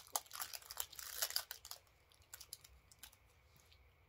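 Candy wrapper crinkling as a pine nut caramel is unwrapped: a dense crackle for about the first two seconds, then only a few faint ticks.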